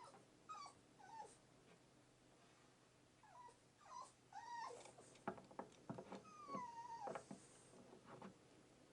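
Faint whining calls from an animal: a series of short cries that bend up and down in pitch, then one longer falling cry near the end, with a few sharp knocks about halfway through.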